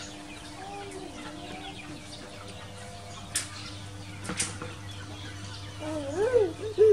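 Animal calls: a quick run of short rising-and-falling calls near the end, with two sharp clicks or knocks in the middle.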